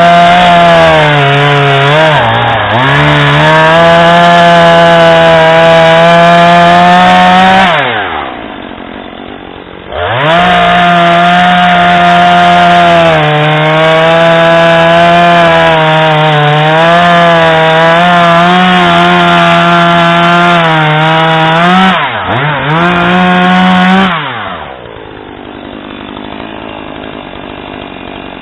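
Husqvarna 440e X-Torq two-stroke chainsaw (40.9 cc) running at full throttle through wood, its pitch sagging and recovering under load. It twice drops back to idle, about eight seconds in and again near the end, revving up again after the first.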